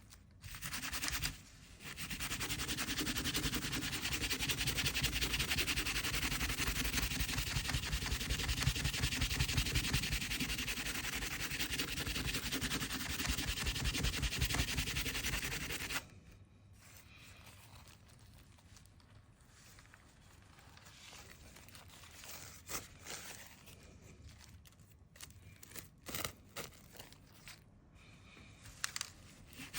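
Steady rubbing and scraping against a hard surface for about fourteen seconds, cutting off suddenly. After that, quiet handling with a few light taps and clicks.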